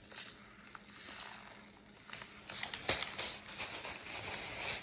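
Plastic snack wrappers crinkling as packaged candy is handled, an irregular crackling that gets busier in the second half, with a sharp crackle about three seconds in.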